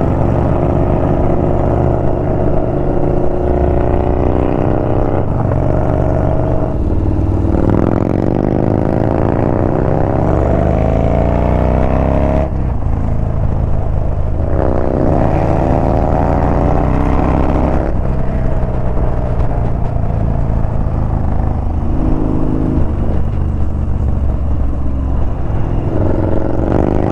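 Yamaha Bolt's 942 cc air-cooled V-twin running hard through canyon corners, its pitch climbing in two long pulls, with a sudden drop between them about twelve seconds in.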